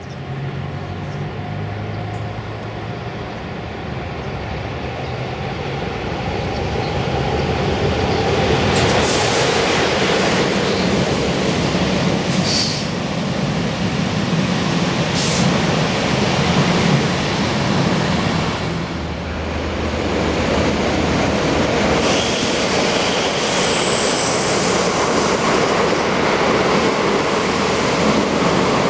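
Passenger train rolling past close by on the rails, its sound building over the first several seconds and then staying loud. Short high-pitched squeals from the wheels come several times.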